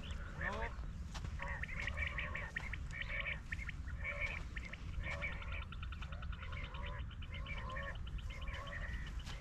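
Several birds calling and chirping, short repeated notes with a fast rattling trill in the middle, over a steady low rumble.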